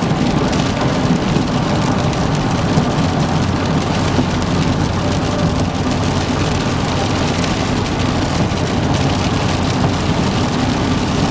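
Heavy rain hitting a moving car's roof and windshield, a steady dense patter over the low rush of tyres on the soaked highway.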